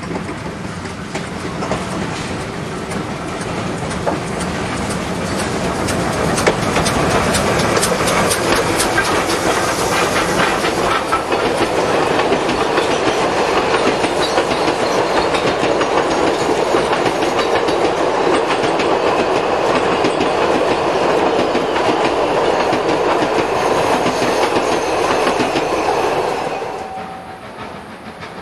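A 2 ft 6 in narrow gauge train, Garratt steam locomotive G42 and its carriages, passing close by with its wheels clattering over the rail joints. It grows louder over the first several seconds as the train draws near, stays loud as the carriages roll past, and drops away sharply near the end.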